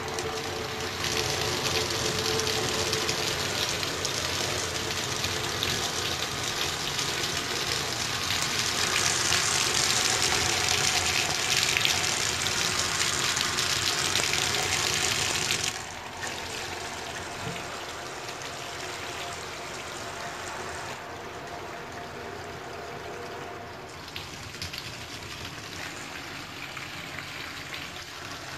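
Water from a GROHE Rainshower Classic hand shower spraying from its many jets onto a bathtub, a steady hiss. About halfway through it drops suddenly to a quieter flow as the head is switched to a single-stream mode, the water splashing into the tub.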